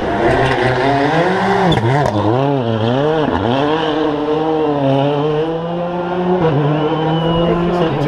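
Rally car engine revving hard through a hairpin, its pitch rising and falling several times with the throttle, then held high as it accelerates away, with one sudden drop in pitch at a gear change about six and a half seconds in.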